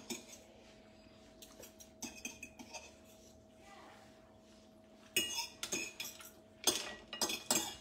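A metal fork clinking and scraping on a ceramic plate of spaghetti with mussels in their shells. There are a few light clinks about two seconds in, then louder runs of clatter around five and again around seven seconds in.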